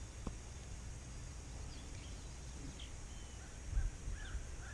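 Light wind rumbling on the microphone, with a small bird calling in a quick series of short chirps that rise and fall, starting about three and a half seconds in.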